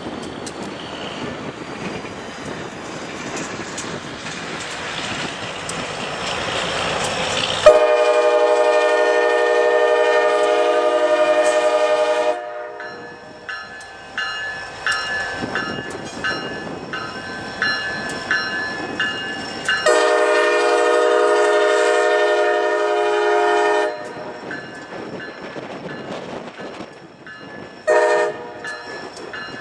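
CSX diesel locomotive's multi-chime air horn sounding two long blasts and then a short one, the long-long-short pattern for a grade crossing. Under it is the rising rumble of the approaching train, with wind noise.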